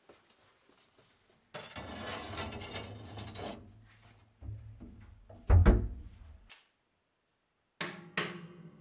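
A cast-iron sign handled in a sandblast cabinet: a scraping rattle, then heavy thuds on the perforated steel grate, the loudest a little past halfway. Near the end come two sharp metallic knocks that ring on.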